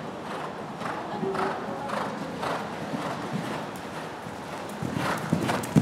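Horse's hooves beating on dirt arena footing, about two dull thuds a second, getting louder near the end.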